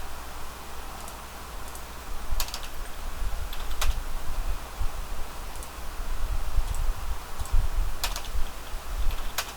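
Typing on a computer keyboard: scattered keystrokes with a few louder, sharper key clicks.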